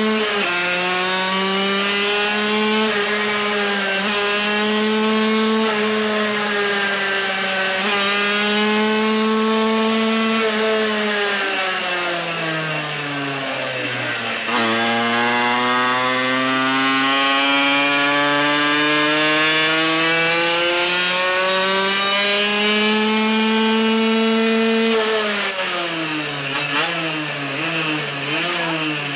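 Kreidler 50 cc single-cylinder two-stroke moped engine running hard on a roller dyno, held at a high, steady pitch. About twelve seconds in its revs sag, then climb steadily in a long pull for about ten seconds under dyno load. Near the end the engine drops off and is blipped up and down.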